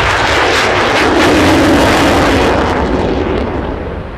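Jet noise of a Panavia Tornado's twin RB199 turbofans on a low pass, loudest about a second and a half in, then fading away.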